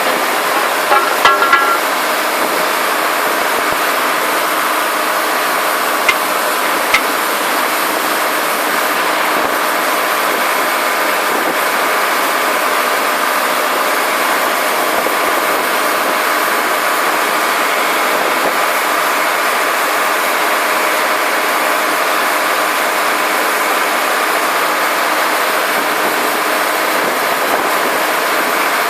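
Integrated DTH surface drill rig running, its engine giving a loud, steady mechanical noise. A few brief higher sounds come about a second in, and two short clicks come a few seconds later.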